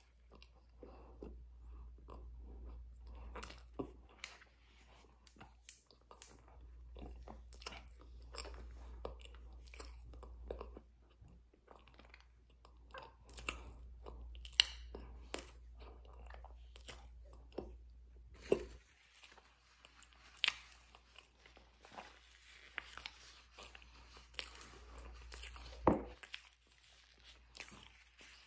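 Close-up ASMR crunching and chewing of a mouthful of crisp food, with many short sharp crackles. About two-thirds through a faint steady hiss comes in, and near the end there is one louder sharp crack.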